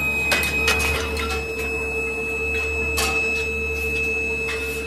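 Induction melting furnace running with a steady electrical hum and a constant high whine, broken by a few sharp clicks and knocks.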